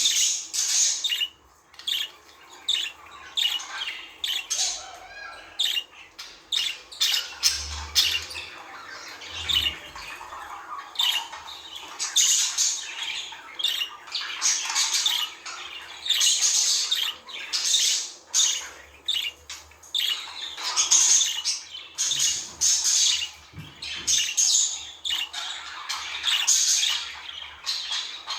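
Budgerigars chattering and chirping in quick, continual bursts of high, scratchy calls: the budgie warble.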